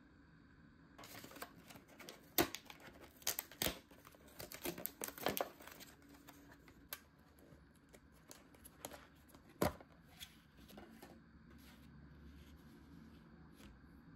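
Plastic food packaging being handled and torn open: crinkling with sharp crackles, busiest in the first half, thinning to scattered clicks later.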